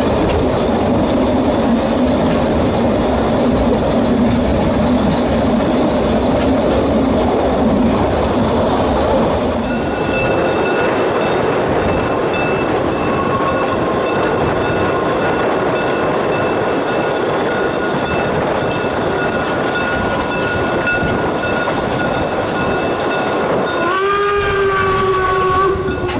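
Narrow-gauge steam train running, heard from a passenger carriage: a steady rumble of wheels on rail, joined about ten seconds in by a thin steady high squeal with regular light ticks. About two seconds before the end the steam locomotive's whistle starts, a loud chord-like blast that rises slightly at its onset and is still sounding at the end.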